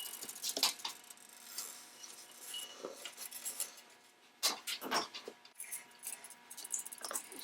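Light metallic clinks and taps as small metal lamp parts are handled and set down on a workbench, with a louder cluster of knocks about halfway through.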